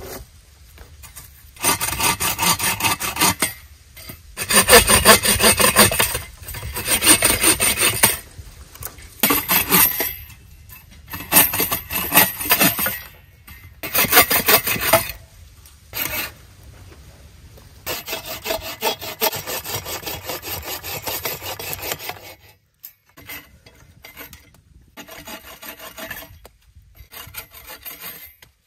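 Hand saw cutting through dead eastern red cedar, stroke after stroke in runs of a second or two with short pauses between; the sawing grows much fainter about 22 seconds in.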